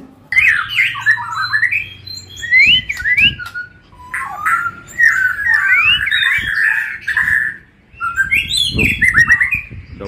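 Black-tailed white-rumped shama (murai batu ekor hitam) singing loudly in its cage: fast, varied whistled phrases with quick rising and falling notes and harsher calls mixed in, broken by two brief pauses.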